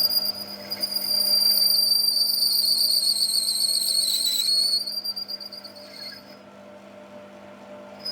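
High, steady whine of metal being cut on a machine tool. It wavers and sags in pitch, then stops about four and a half seconds in, leaving a steady low machine hum.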